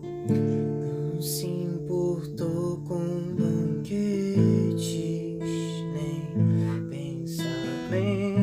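Acoustic guitar strumming slow chords in a worship song, before the vocals come in.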